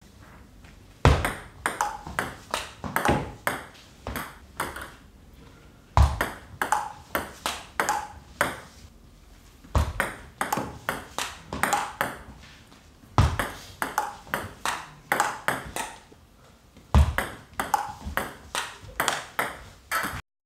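Table tennis ball clicking off rubber-covered bats and the table in five short rallies of sidespin blocks against topspin. Each rally opens with the loudest hit and runs on as a string of quick, lighter clicks.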